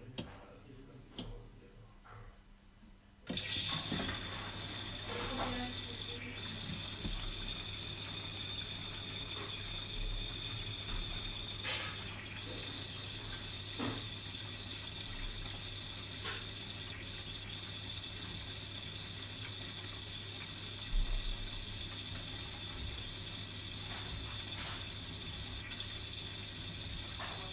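Miele Supertronic front-loading washing machine taking in water: about three seconds in, water starts rushing steadily into the drum, with a low hum underneath and a few short clicks from the tumbling drum.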